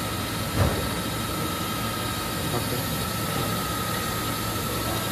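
Mikron UCP 800 Duro five-axis machining centre running while its swivelling trunnion table tilts on the A axis: a steady machine hum with a thin high whine through it. A single thump comes about half a second in.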